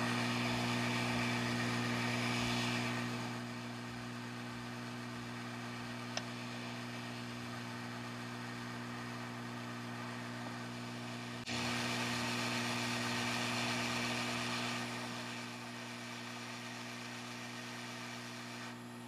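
Hot air rework station blowing onto the logic board to desolder the U2 Tristar charging chip: a steady blower hum under an airy hiss. The hiss is louder for the first three seconds, then jumps up again suddenly at about eleven seconds and eases back a few seconds later.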